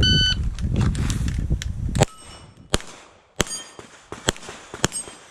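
Electronic shot-timer start beep, then a low rumbling noise for about two seconds. After that comes a quick string of about five pistol shots at steel plates, with hits ringing off the steel.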